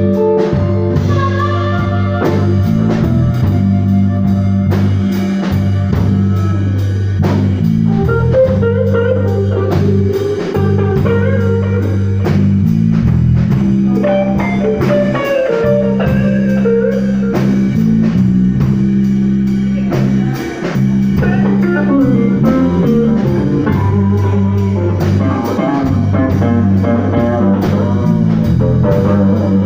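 Blues band playing an instrumental passage: electric guitar lines over bass and a drum kit at a steady beat.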